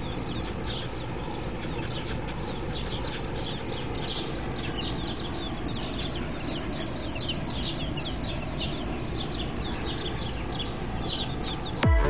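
Baby chicks peeping: many short, falling chirps, several a second, over a low steady rumble. Electronic music cuts in just before the end.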